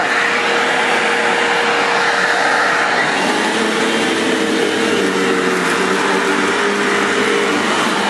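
Bissell multi-cyclonic pet upright vacuum cleaner running steadily while vacuuming the floor: a steady motor whine over the rush of air.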